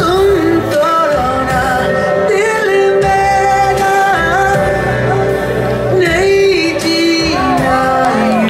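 Music with a singing voice holding long notes that bend and waver.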